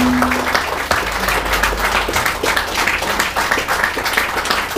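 A small audience clapping and applauding, in a dense irregular patter. A steady held low note dies away about half a second in.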